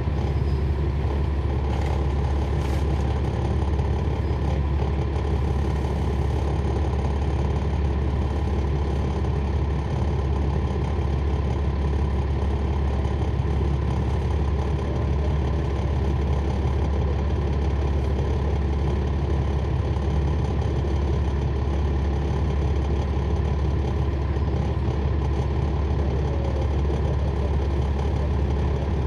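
Cummins ISL9 inline-six diesel engine of a NABI 40-SFW transit bus idling steadily, heard from inside the bus, a deep even hum with no revving.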